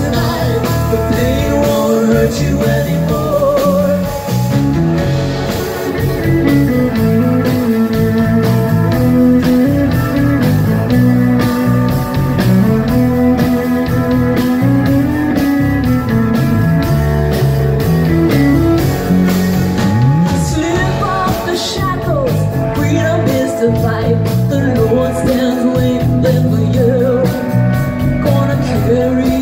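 A band playing live: acoustic guitar and drums under a fiddle playing lead, its notes wavering and sliding.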